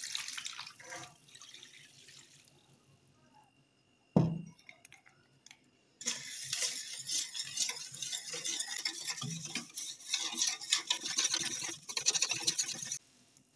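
Milk poured into a stainless steel mixing bowl over dry ingredients, fading out after a couple of seconds, then a single sharp thump about four seconds in. From about six seconds a wire whisk scrapes and swishes rapidly around the steel bowl, stirring the milk mixture, until it stops suddenly near the end.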